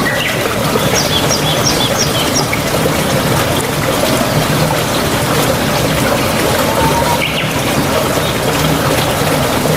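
Steady rain with birds chirping over it: a quick run of about six high chirps about a second in, and a single call near the middle.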